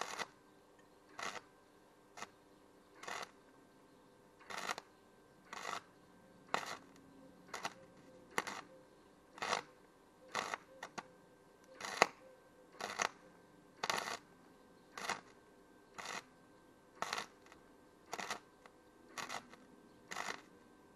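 MIG welder arc crackling in short bursts, about one a second, as a trampoline frame tube is welded in a run of quick pulses.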